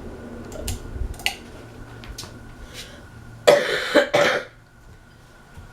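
Casablanca Delta 2 ceiling fan running on high with a steady low hum and a few light clicks. About three and a half seconds in, a person coughs twice loudly, and the fan's hum drops away after the coughs.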